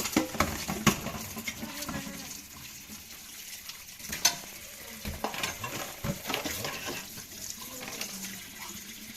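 Water running at a sink, with scattered knocks and clatter of pots and utensils.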